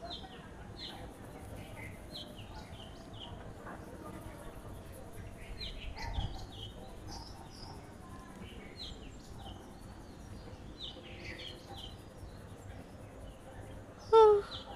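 Small birds chirping again and again in short, falling notes, over a faint high insect buzz. One brief, loud pitched call or squeak comes near the end.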